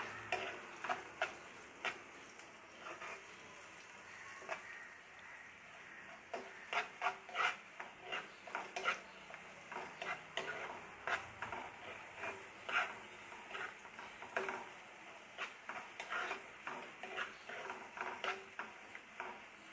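A steel spoon stirring chopped onions in a nonstick kadhai, with irregular scrapes and taps against the pan over the faint sizzle of the onions frying in oil and butter on a medium flame.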